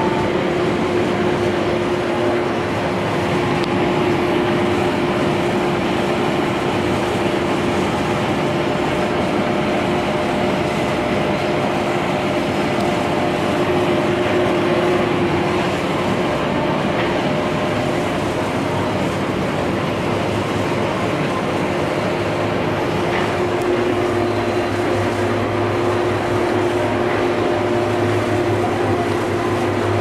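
Case Axial Flow 9230 combine running while harvesting, heard inside the cab: a steady machinery drone with a constant whine. About three-quarters of the way through, the low hum changes in tone.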